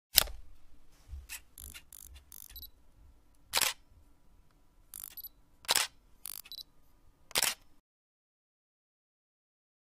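DSLR camera shutter clicks: four sharp shutter releases a second or two apart, with fainter clicks and mechanism sounds between them.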